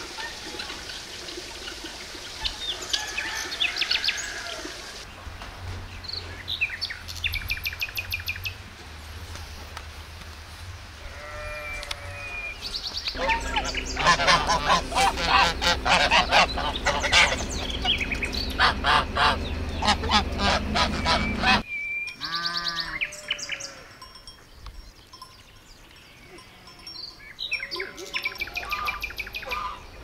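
Domestic geese honking: a flock of geese calling loudly over one another in quick, harsh, overlapping honks through the middle of the stretch. Softer, scattered bird calls come before and after, with abrupt changes where the clips are cut together.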